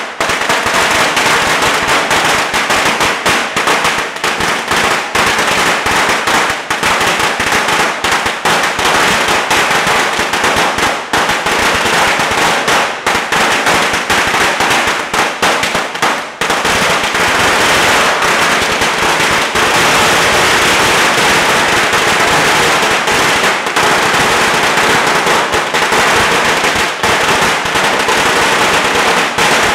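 A very long string of Chinese firecrackers going off in a continuous, rapid crackle of bangs, with no break in the firing.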